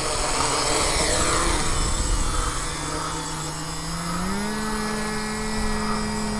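Homemade quadcopter's electric motors and propellers whirring as it takes off, the pitch stepping up about four seconds in as it climbs and then holding steady.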